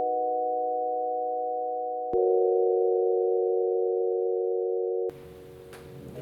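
Electronic sustained chord of pure, steady tones that shifts to a new chord with a click about two seconds in, fades slightly, and cuts off abruptly about five seconds in, leaving faint room noise with a few light clicks near the end.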